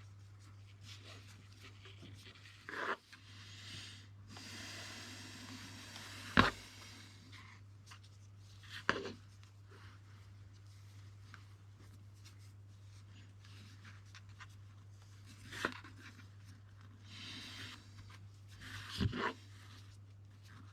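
Nylon paracord rustling and sliding as it is wrapped round and pulled tight by hand, with a handful of sharp taps and knocks from handling, the loudest about six seconds in. A steady low hum runs underneath.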